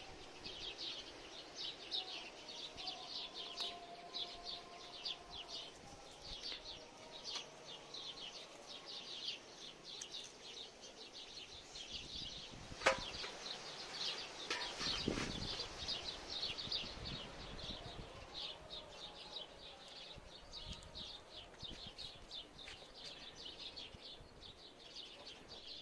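Small birds chirping continuously in a dense, rapid chatter. There is one sharp click about halfway through and a brief low thump a couple of seconds later.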